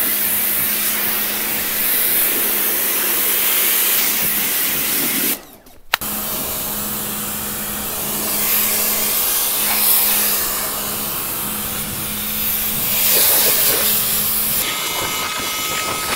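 Electric pressure washer running: its motor and pump hum steadily under the hiss of the water jet spraying. The sound breaks off briefly about five seconds in, and the hum stops near the end.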